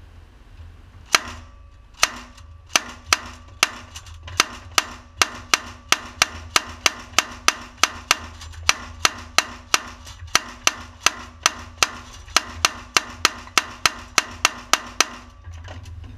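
1862 Gatling gun being hand-cranked, its mechanism giving a sharp crack about three times a second in a steady train with a faint ring between strikes. The cracks start about a second in, falter briefly midway and stop shortly before the end.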